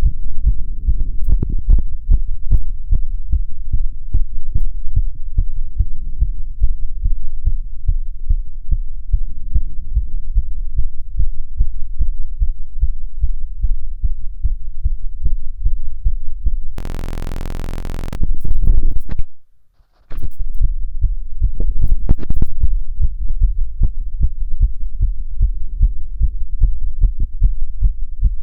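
A man's fast heartbeat heard through a stethoscope on the chest: steady, rapid low thuds, fast but otherwise normal. About two-thirds of the way through, the beat gives way to a flat buzz, scraping and a moment of silence, then comes back.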